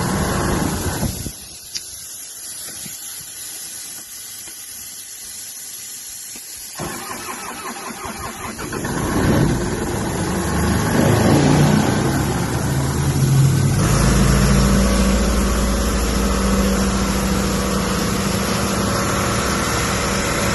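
Doosan 7/120 portable air compressor's diesel engine cold-started after glow-plug preheat. It catches about seven seconds in, runs up unevenly and settles into a steady run from about fourteen seconds in.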